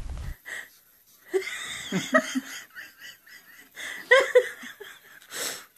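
A person laughing in short spurts, loudest about four seconds in, after a brief low wind rumble that cuts off at the start.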